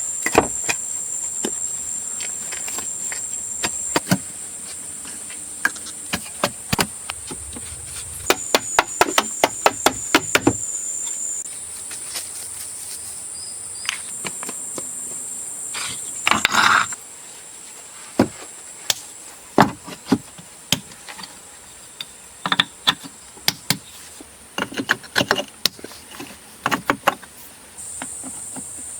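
Irregular sharp knocks and taps of hand-tool work, some in quick runs, with one short rasping burst about halfway. Under them is a steady high drone of insects.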